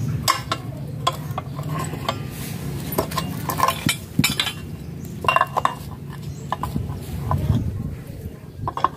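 Irregular metallic clinks and knocks of a steel T-handle socket wrench being handled, lifted off and fitted back onto the impeller nut of a rusty water pump's cast-metal body, some strikes ringing briefly.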